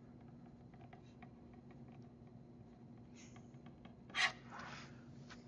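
Felt-tip marker writing on paper: faint, short scratchy strokes as words are written, then a quick underline stroke about three seconds in. A brief louder rustle follows about a second later, over a faint steady hum.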